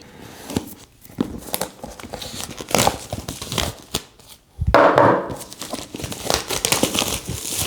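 Product packaging being unboxed by hand: crinkling and rustling with scattered clicks, and a louder burst of rustling about five seconds in.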